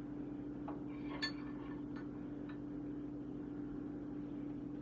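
A steady low hum, with a few faint light clicks and clinks between about one and two and a half seconds in.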